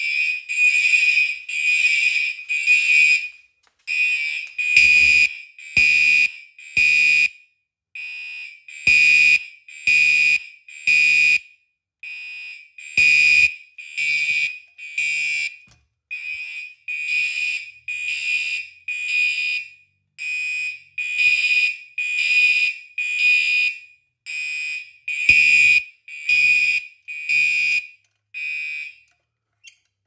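Several electronic fire alarm horns sounding short, loud blasts in a repeating pattern with a longer pause about every four seconds, their blasts not falling evenly in step. The horns cut off about 29 seconds in, followed by a faint click.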